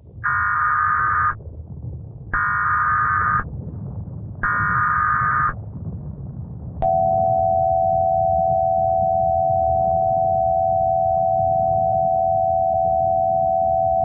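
Emergency Alert System header: three roughly one-second bursts of buzzing SAME data tones a second apart, then, after a click about seven seconds in, the steady two-tone EAS attention signal, all pitched lower than the standard tones. A low rumbling noise runs underneath.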